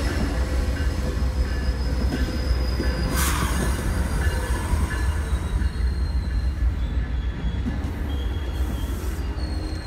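Amtrak Superliner passenger cars rolling past close by: a steady low rumble from the wheels and trucks, with thin, high wheel-squeal tones coming and going. One sharp clank comes about three seconds in, and the rumble eases a little near the end as the last car goes by.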